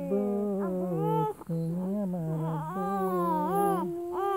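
Humming of a tune in low, held notes that step from one pitch to the next, with a young child's higher voice singing along in gliding notes over it.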